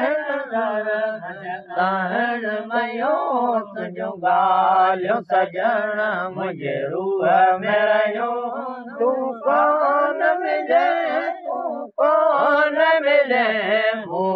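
Men singing a Sindhi mahlood, a devotional chant, unaccompanied, in long wavering held notes with short pauses for breath.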